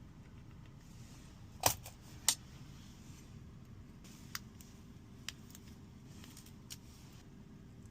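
Sharp clicks and taps of small hard tools and parts being handled during an iPhone screen repair: two louder clicks a little over a second and a half in and just after two seconds, then a few fainter ticks, over a low steady hum.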